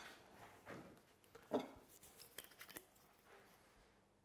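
Quiet kitchen handling while plating food: a few light taps and clicks of utensils against a plate. The sharpest tap comes about a second and a half in.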